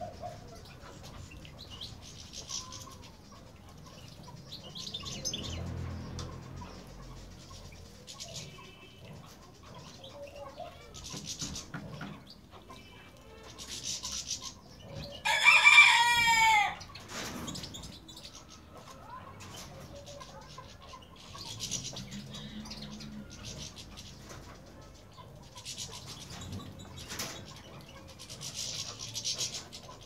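A rooster crows once about halfway through, the loudest sound. Around it, European goldfinches splash and flutter their wings in a shallow water bath in repeated short bursts, with a few faint chirps.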